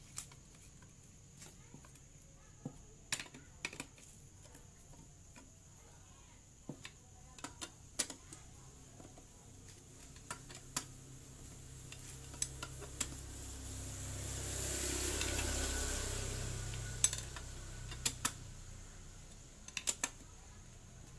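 Scattered metal clicks and taps of a T-handle socket wrench working the valve cover bolts of a small four-stroke generator engine as they are tightened. Midway a low rumble swells for several seconds and then fades.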